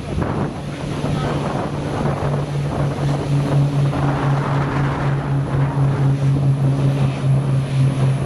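Propeller aircraft engines droning steadily, a low hum that pulses a few times a second, with a higher tone joining partway through. Wind buffets the microphone throughout.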